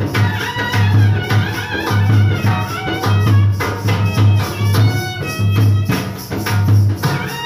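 Instrumental music with a steady beat: a pulsing bass under a melody, with tambourine-like shaken percussion.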